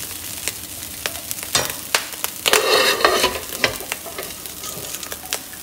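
Stainless steel ladle tapping and scraping on a hot nonstick wok as cooked clam filling is spread over it, with scattered ticks and a faint sizzle from the dry pan. There is one longer scrape about two and a half seconds in.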